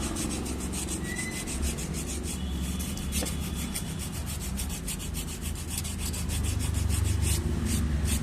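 Emery paper rubbed in quick, repeated back-and-forth strokes over the friction shoes of a TVS Jupiter scooter's centrifugal clutch. It scours off the carbon glaze that makes the scooter lose pickup and vibrate.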